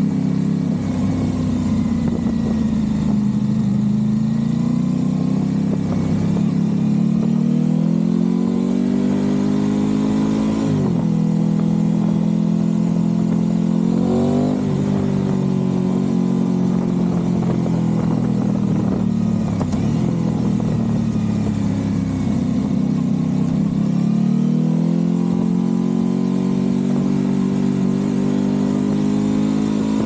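Aprilia RS660's parallel-twin engine through a Mivv Delta Race exhaust, pulling through the gears in city riding. Revs climb and drop sharply at a gear change about eleven seconds in, kick up briefly around fourteen seconds, then fall away slowly as the bike slows. They build again with another shift near the end.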